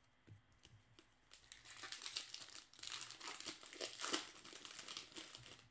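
A 2016 Bowman baseball card pack's wrapper being torn open and crinkled by hand. A dense crackle starts about a second in and is loudest near the end.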